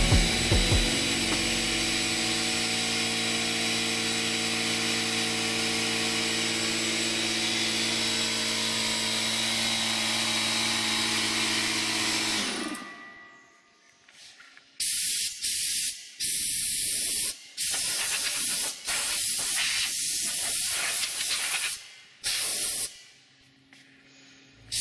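Stanley Fatmax 2 HP lubricated vertical air compressor running, a steady hum with a hiss over it; about halfway through the motor shuts off and winds down. After a short pause comes a series of short blasts of compressed air hissing from a blow gun.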